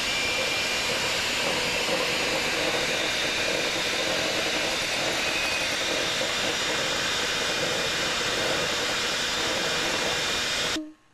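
Electric mixer running steadily on low speed, whipping the butterbeer foam mixture in a bowl, then switched off suddenly near the end.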